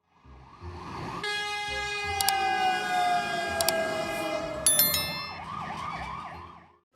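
Emergency vehicle siren wailing up and down as it fades in, with a long tone that falls slowly in pitch as the vehicle passes, and a few sharp clicks.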